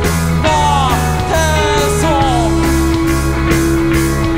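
A rock band playing loud and live: electric guitars, bass and drums. Several falling pitch glides come in the first half, then a long held note runs from about halfway.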